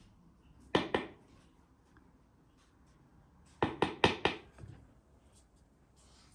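Short, sharp knocks of kitchenware being handled on a wooden table: two about a second in, then a quick run of four or five near the four-second mark.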